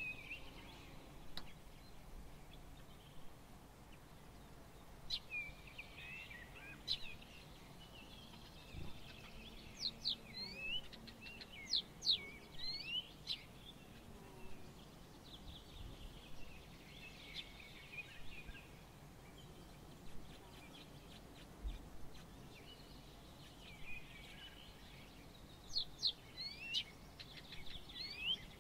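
Small songbirds chirping and twittering in several bouts, quick rising and falling whistled notes, over a faint steady hiss.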